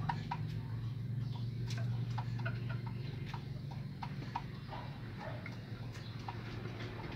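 Red junglefowl pecking at feed on a dirt floor, their beaks tapping the ground in short, irregular clicks several times a second. A steady low hum runs behind, fading a little about halfway through.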